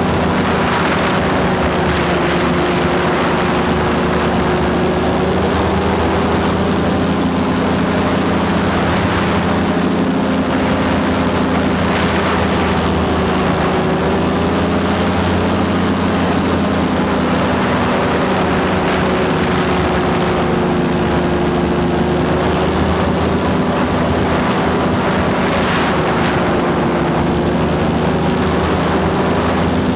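A small propeller engine running steadily, its pitch wavering slightly, with wind rushing over the microphone.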